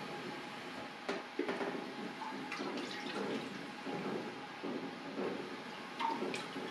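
Molten candle wax dripping and streaming off a dipped candle back into a wax vat, with a few sharp clicks.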